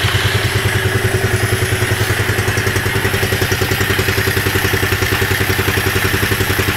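The 300cc single-cylinder engine of a utility vehicle idling steadily with an even pulse, just after firing up from a long lay-up. It is a bit rattly, which is typical of these engines.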